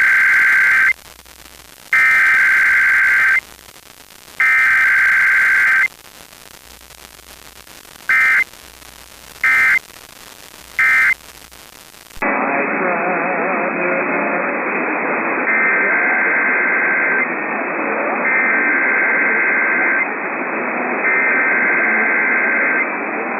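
Emergency Alert System SAME data bursts: three buzzing header bursts about a second and a half long, then three short end-of-message bursts of a weekly test. About twelve seconds in, a hissy, narrow-sounding off-air radio recording takes over, and three more header bursts play through the static.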